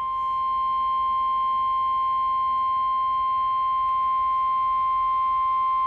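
Weather-radio emergency alert tone: a single steady, high-pitched tone near 1 kHz, held unbroken and level, the 1050 Hz warning alarm that announces a severe thunderstorm warning.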